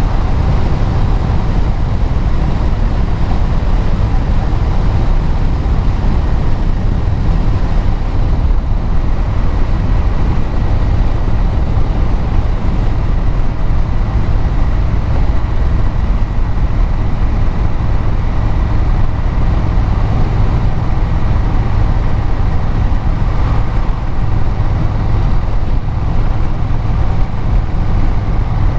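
Vehicle engine exhaust and road noise while cruising at a steady speed: a steady low rumble with an even rushing of tyres and air, the engine note holding without revving up or down.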